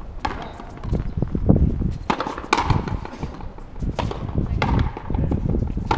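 Frontenis rally: several sharp cracks of the rubber ball off rackets and the frontón wall, a second or two apart, over a low rumble.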